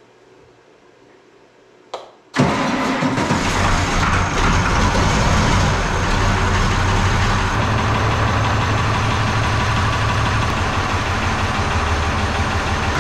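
International 986 tractor's turbocharged six-cylinder diesel starting about two seconds in, catching at once and then running at a steady idle.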